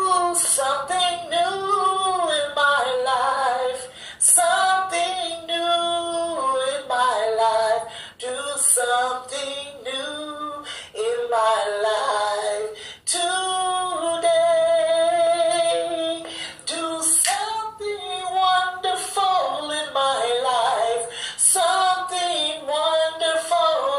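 A woman singing a praise-and-worship song, her voice sliding and bending through long sung phrases with short breaths between them.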